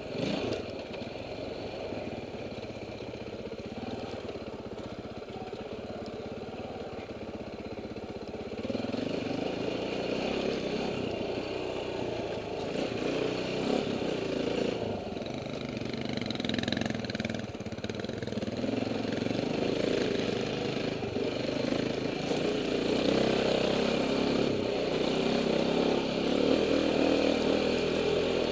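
KTM enduro dirt bike engine heard from the rider's helmet camera, running and rising and falling with the throttle, louder from about eight seconds in.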